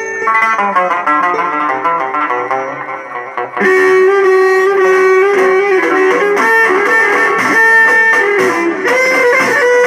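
Instrumental music led by rapid plucked-string playing; about a third of the way in it turns louder and fuller, with long held notes joining in.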